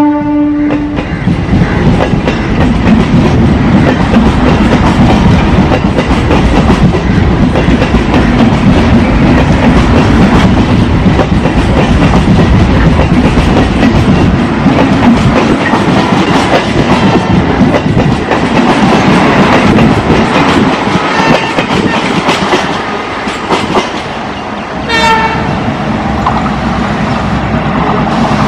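Twin ALCo WDM-3A diesel locomotives, each with a 16-cylinder turbocharged ALCo 251 engine, chugging hard as they haul an express train past at speed, with wheels clattering over the rails. The horn dies away about a second in, and a short horn blast sounds near the end.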